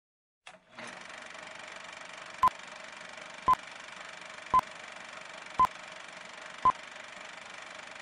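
Film countdown leader sound effect: a steady projector-like whir and hiss with five short beeps, one a second, as the numbers count down.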